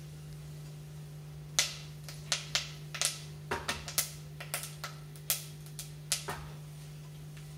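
Peanuts and mustard seeds popping in a hot ghee tempering in a steel pan: irregular sharp pops, more than a dozen, starting about a second and a half in, over a steady low hum.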